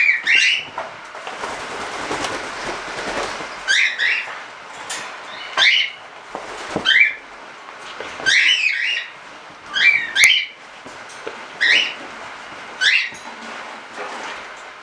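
Pet cockatiels giving short, rising whistled calls, about a dozen of them, one every second or so, some in quick pairs.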